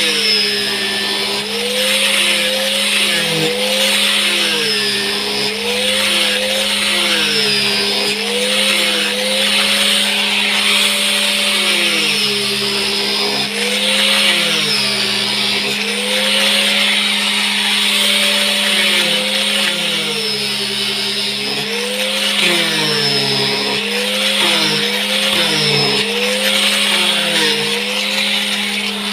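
Electric sander running on a wooden shutter for finishing, its motor whine dipping and rising again and again over a steady hum and a sanding hiss.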